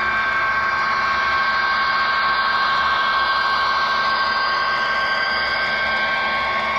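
Model freight train rolling close past: a steady whir and hiss of the locomotive's motor and the cars' wheels on the rails, with a couple of steady high tones running through it.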